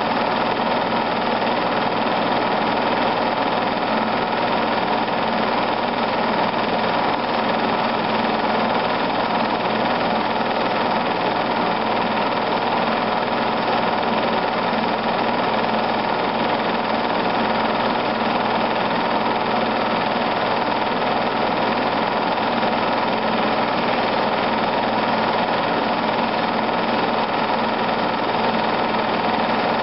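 Film projector running steadily, a continuous mechanical whir and clatter with a constant hum that does not change.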